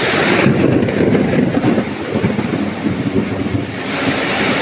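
Summer-storm wind gusting hard against the microphone, a loud rushing noise that buffets and swells unevenly.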